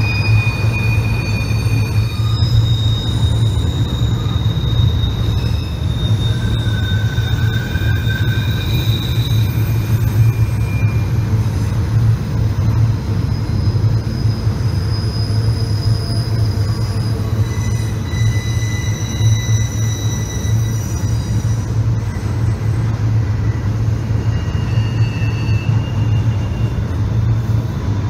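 Union Pacific autorack freight train rolling around a tight loop curve: a steady low rumble with the wheel flanges squealing in long high tones that come and go.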